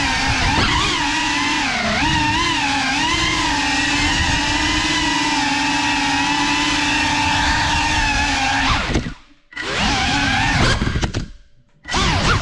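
Cinelog 35 FPV drone's motors and propellers whining, the pitch wavering up and down with the throttle. Near the end the whine cuts out twice, briefly, as the throttle is chopped, then comes back each time.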